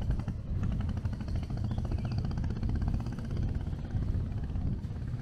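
A small engine running with a rapid, even pulse for the first three seconds or so, over a steady low rumble of wind on the microphone.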